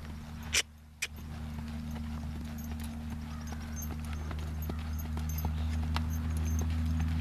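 Hoofbeats of a quarter horse trotting on a dirt track, a run of light, uneven clops over a steady low hum that grows louder. Two sharp knocks come about half a second and one second in.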